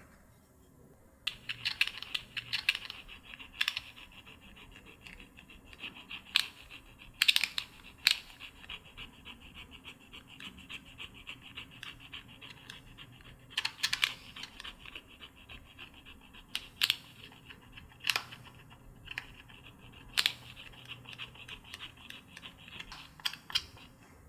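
Slime being squished and mixed by hand: a run of sticky crackling starting about a second in, with loud sharp pops scattered through it.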